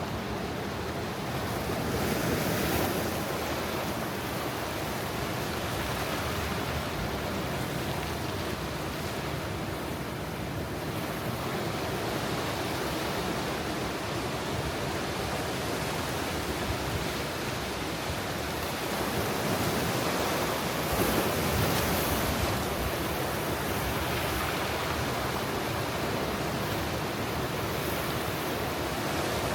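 Ocean surf at high tide washing onto a rocky shore: a steady rush of water, with waves swelling louder a couple of seconds in and again about two-thirds of the way through.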